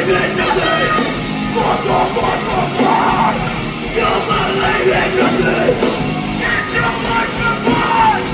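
A live metalcore band playing loud, heavy rock, with yelled vocals over the band.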